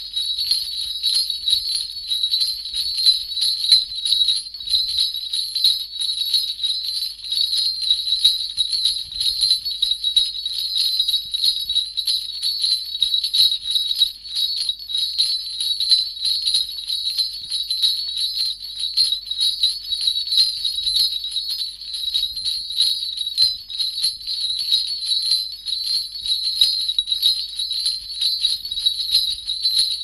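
Sleigh bells shaken continuously: a dense, unbroken jingling that swells and dips rapidly without pause.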